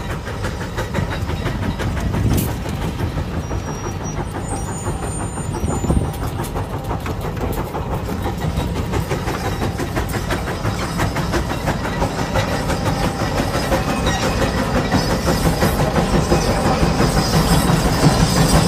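Case steam traction engine chuffing in a fast, steady exhaust beat while it pulls a multi-bottom plow through the soil under load. The beat grows louder near the end.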